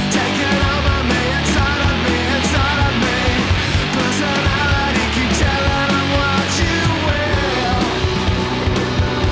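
Loud background rock music with distorted guitars and a steady driving beat.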